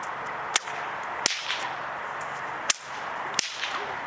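Bullwhip cracked repeatedly in Victorian cutbacks, giving four sharp cracks in two pairs about two seconds apart, the first crack of each pair the louder, over a steady background hiss.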